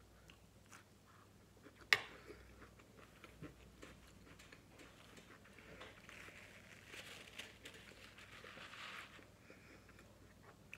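Faint chewing of asparagus with small wet mouth clicks, and one sharp click about two seconds in. From about six to nine seconds a paper napkin rustles as it wipes her mouth.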